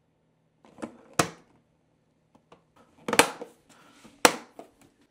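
Hard plastic clicks and snaps from the Creality CFS Lite filament box's top feeder unit as it is unlatched, lifted for service and pressed back into place. There are several sharp clicks with a few faint ticks between them, and the two loudest come about three and four seconds in.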